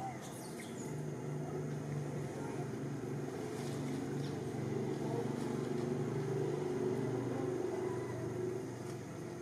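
A motor engine drones steadily. It grows louder through the middle and eases off near the end, like a vehicle going by.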